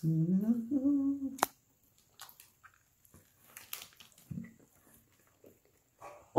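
A man hums a rising 'mmm' through a mouthful of burger for about a second and a half, ending in a sharp click; then faint chewing sounds.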